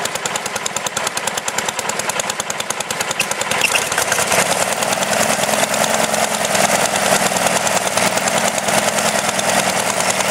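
Sears Suburban garden tractor engine running under load as the tractor works a rear blade through trench dirt. The engine note fills out and grows a little louder about four seconds in.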